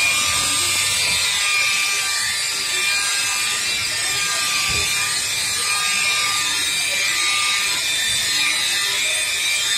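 DeWalt rotary polisher running at a steady speed with a steady whine, its foam pad buffing a faded plastic headlight lens that has been sanded with 500-grit paper.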